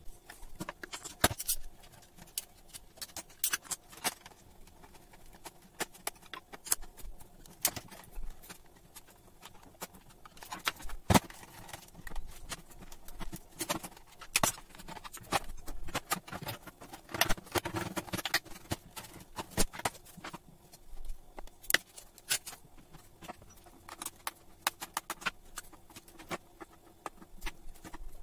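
Quick, irregular clicks and knocks of plastic router and modem casings and hand tools being handled as the units are taken apart with screwdrivers, played sped up.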